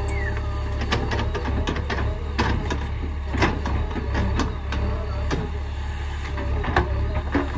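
JCB 3DX backhoe loader's diesel engine running steadily as the backhoe bucket loads cow dung into a tractor trailer, with frequent sharp knocks and clatter from the bucket and the dumped dung.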